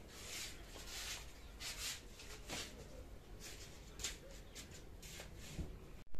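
Bed quilts rustling as they are shifted, in a series of soft fabric swishes.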